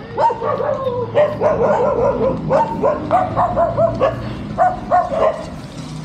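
A dog barking repeatedly in a quick, continuous run of short barks.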